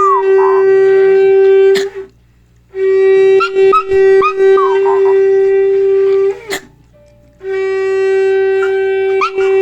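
Shofar sounded in long, steady blasts of one pitch, broken twice by short pauses, with a dog howling along in wavering cries over it.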